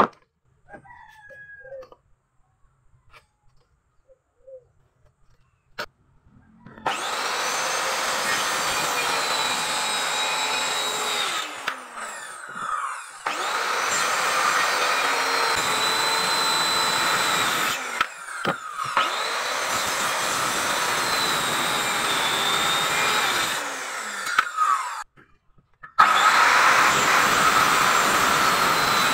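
Hand-held electric circular saw cutting into a thick wooden plank. After a few seconds of quiet handling with a light knock, the saw starts and runs steadily through the wood, slowing and stopping briefly twice before starting again.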